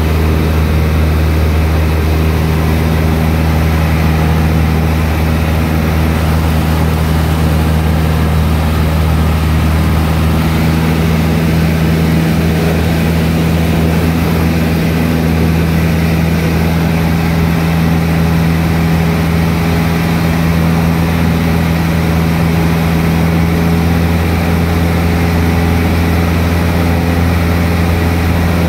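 Cessna 152's Lycoming four-cylinder piston engine and propeller, heard from inside the cabin as a loud, steady drone with no change in pitch during a low pass along the runway.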